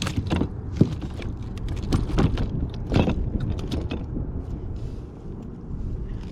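Wind rumbling on the microphone, with a few short knocks and rustles scattered through it.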